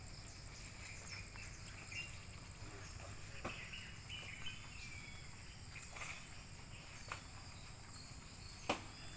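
Rural outdoor ambience: a steady high-pitched insect drone, with a few faint bird chirps and scattered soft taps, the sharpest near the end.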